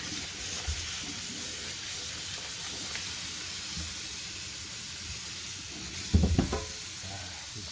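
A steady hiss, with a short cluster of low thumps about six seconds in.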